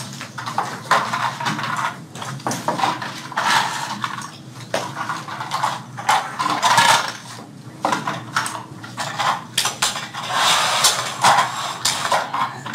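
Irregular clatter and clicking of small toy-airplane parts being handled and put together by hand on a work table.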